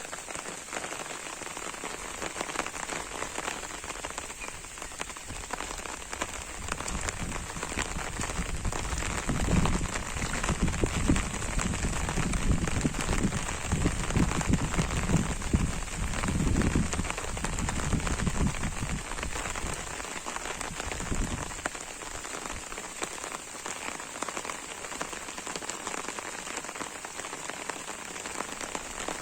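Steady rain falling, an even hiss throughout. For about twelve seconds in the middle a low, uneven rumble sits under it.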